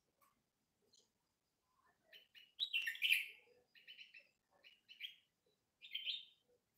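Bulbuls chirping: a run of short, high calls that begins about two seconds in, the loudest near the middle.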